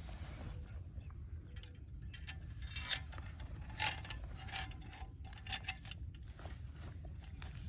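Scattered, irregular metallic clicks and clinks of rope-rigging hardware being handled, over a steady low rumble.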